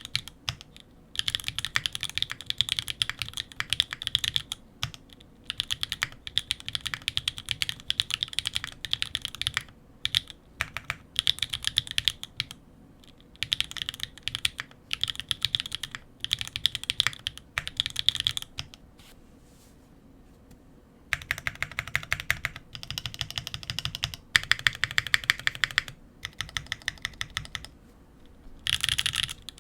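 Typing on a Sangeo65 mechanical keyboard with Swagkey x Gateron Pure Berry 62 g linear switches, stock-lubed, under GMK keycaps on an aluminium plate with plate foam. Rapid runs of keystrokes alternate with short pauses. A quiet break of about two seconds comes past the middle, followed by a denser run.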